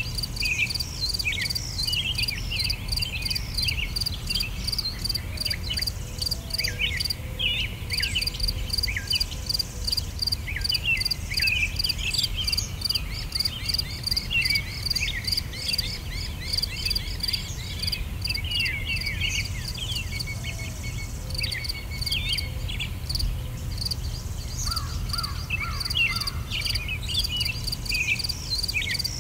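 Outdoor nature ambience: insects chirping in a rapid, even pulse, with birds chirping over it and a steady low rumble underneath.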